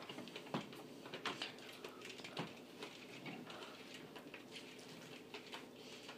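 Scattered light clicks and taps from a plastic baby walker: the baby handling the toys on its tray while the walker shifts on a wooden floor, with a few sharper knocks in the first half.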